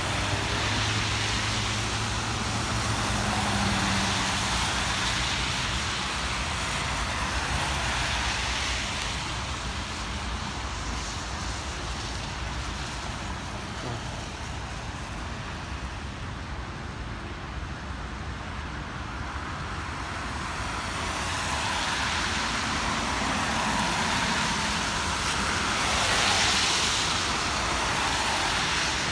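Cars passing close by on a rain-wet road, their tyres hissing and each pass swelling and fading, over a steady low rumble. The hiss is strongest in the first few seconds and again near the end.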